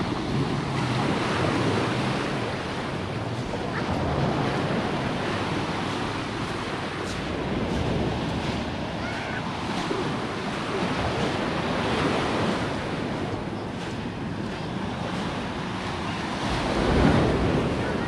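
Small waves breaking and washing up a pebbly shoreline: a steady rush of surf that swells about every four seconds, loudest near the end, with wind buffeting the microphone.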